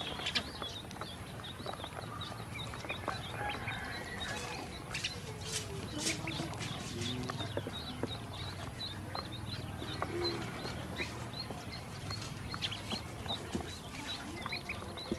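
A group of ducklings peeping over and over in short high calls. Scattered sharp clicks and taps come from their bills working the shallow water and the plastic basin.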